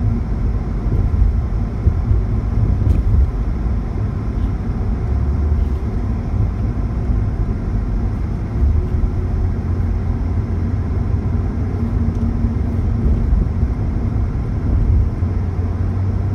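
Steady low rumble of road and engine noise heard from inside a moving car's cabin while it drives along at an even speed.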